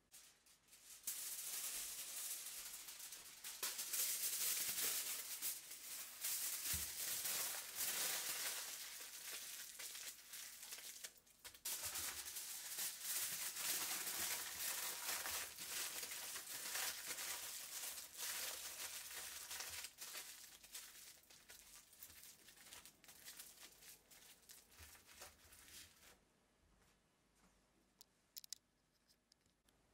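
Aluminium foil crinkling and rustling as it is folded and crumpled by hand around sweet potatoes. The crinkling stops about four seconds before the end, leaving only a few faint rustles.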